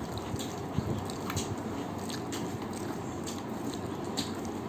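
Close-up chewing of rice and spicy chicken curry, with irregular short wet clicks and smacks, about three a second.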